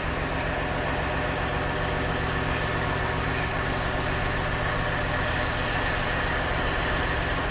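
Two GE diesel-electric freight locomotives running with a steady, unchanging engine drone.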